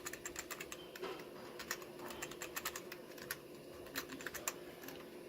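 Typing on a computer keyboard: irregular runs of quick key clicks over a faint steady hum.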